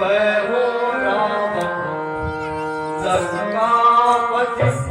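Live stage music: sustained instrumental notes held under a voice singing, with a few hand-drum strokes near the end.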